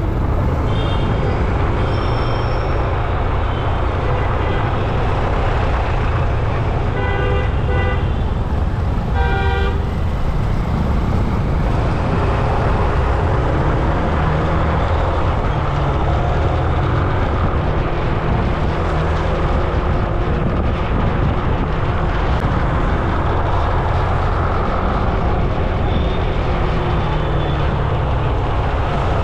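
Steady, loud road traffic rumble heard while riding in traffic, with a vehicle horn honking twice, each about a second long, around seven and nine seconds in.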